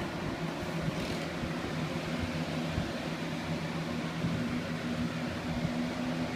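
20-inch Lasko box fan running steadily: an even rush of air from the blades with a low, steady motor hum under it.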